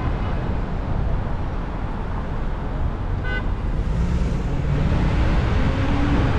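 Steady road and traffic rumble from a car driving on city streets, with one short car horn toot about three seconds in. Near the end an engine rises in pitch as a vehicle speeds up.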